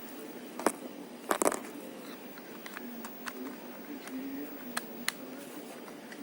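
Sharp clicks and taps from handling a Xiaomi camera and pressing its buttons, with a quick cluster about a second and a half in and single clicks scattered after, over a low steady hum.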